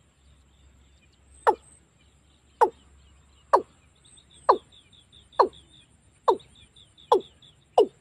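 Watercock calling: a series of eight short, loud notes, each dropping in pitch, coming faster toward the end. This is a recorded decoy call used to lure watercocks in.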